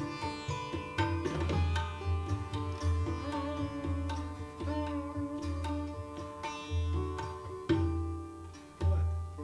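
Sitar and tabla playing Hindustani classical music: the sitar's plucked notes ring on over the hum of its sympathetic strings, while the tabla adds repeated deep bass strokes and lighter sharp strokes.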